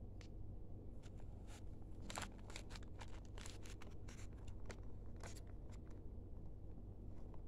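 Plastic courier mailer bag crinkling and crackling in many short bursts as it is handled, over a low steady hum.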